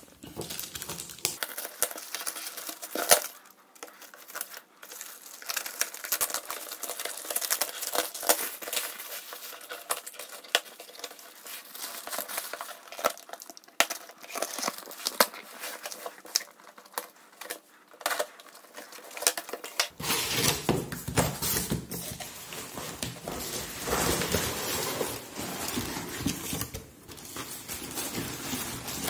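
Parcel being unwrapped by hand: a plastic mailer bag crinkling and rustling as scissors snip it open, then tape and plastic film on a cardboard box being cut and torn, with many sharp clicks and crackles. About two-thirds of the way in the handling becomes fuller and lower as cardboard flaps are pushed open and scraped.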